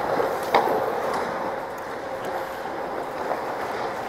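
Ice hockey play on the rink: a steady scraping hiss of skate blades on ice, with a sharp clack of a stick or puck about half a second in.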